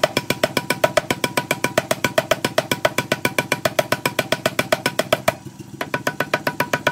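Rapid, regular hammer blows on hot steel at the anvil, about eight a second, each strike with a metallic ring, breaking off briefly about five seconds in before resuming.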